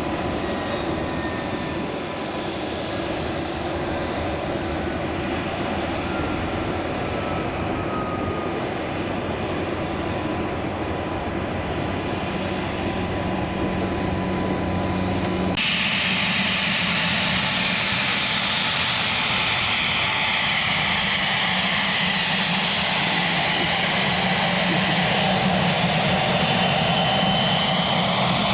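Airplane engines running: a steady drone with a faint falling whistle. About halfway it switches abruptly to a hissier engine sound with a high whine, which grows a little louder toward the end.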